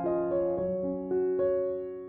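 Background music played on a piano-style keyboard: a slow run of single held notes, a new one every half second or so.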